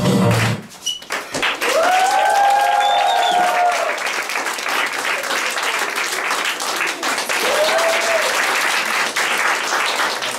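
Music cuts off about half a second in. An audience then applauds, with a few drawn-out cheering whoops from about two to four seconds in and once more near eight seconds.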